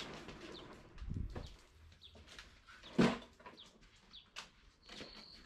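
Toro walk-behind lawn mower, engine off, being wheeled across a garage floor, with rattles and a low thump, and a sharp knock about three seconds in as it crosses the door threshold. Birds chirp faintly in the background.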